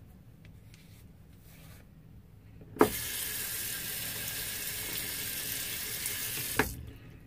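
Water tap running into a sink for about four seconds, turned on about three seconds in and shut off near the end, with a sharp knock at each.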